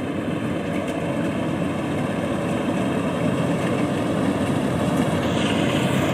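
Yanmar YH850 combine harvester running steadily, a dense engine and machinery noise that grows slightly louder, with a higher hiss joining near the end.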